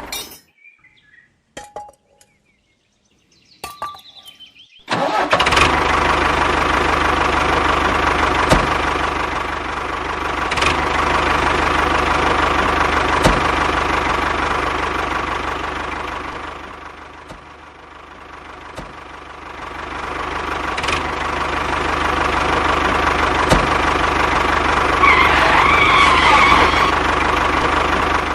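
A small electric motor, as used in a DIY mini tractor, starts about five seconds in after a few clicks and runs with a steady whine. It fades down for a couple of seconds partway through, comes back up, and cuts off abruptly at the end.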